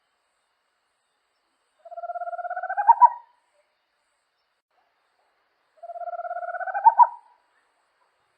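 A small owl (corujinha) singing twice, about four seconds apart. Each song is a rapid purring trill that rises slightly and ends in two louder, accented notes.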